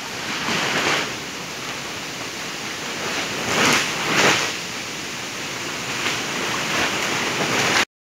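Steady rush and splashing of water in an aerated fish-farming tank, air bubbling up through the surface, with a few louder swells. It cuts off abruptly near the end.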